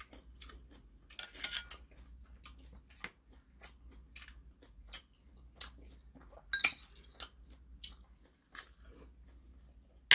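Close chewing: a steady run of small wet mouth clicks. About two-thirds of the way through, metal chopsticks clink sharply against the porcelain stew bowl.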